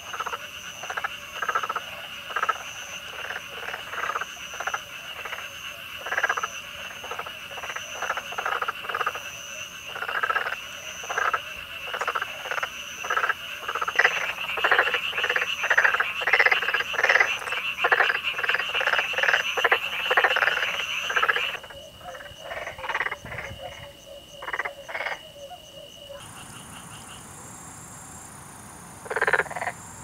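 Black-spotted frogs (Pelophylax nigromaculatus) calling: short rolling "kkareureureu" croaks repeated about twice a second over a steady high-pitched background trill. The calling thins out about two-thirds of the way through, with a single call near the end.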